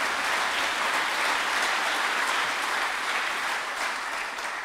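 Audience applauding in a hall, dying down near the end.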